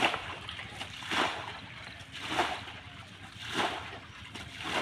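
Sloshing splashes in the shallow mud and water of a drained pond as a person works through it by hand, five even swishes a little over a second apart.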